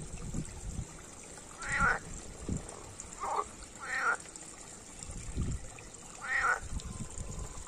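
European green frogs (water frogs) croaking in a pond: four short calls, each well under a second, spread irregularly over several seconds.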